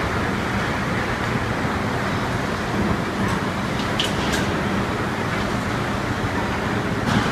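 Magaldi Superbelt steel conveyor running with a steady mechanical rumble and hum while carrying castings. A few sharp clicks, two close together about four seconds in and one near the end.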